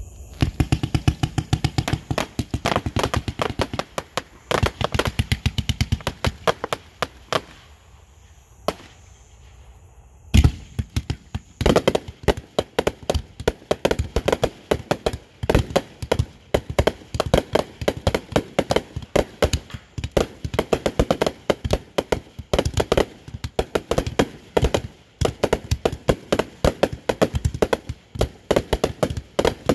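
Firecrackers going off in a rapid, irregular string of sharp pops. The popping stops for a few seconds about eight seconds in, then starts again with one loud bang and carries on as dense crackling.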